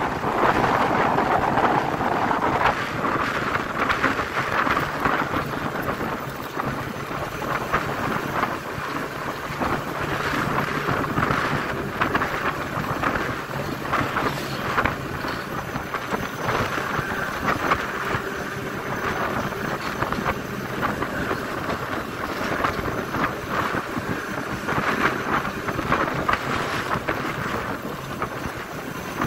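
Wind rushing and buffeting over the microphone of a motorcycle ridden at road speed, with the bike's engine running steadily underneath.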